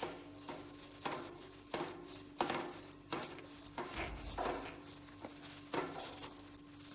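A cloth being pulled back and forth between the cogs of a bicycle cassette to clean it, giving a series of short, sharp rubbing strokes, about one or two a second at an uneven pace.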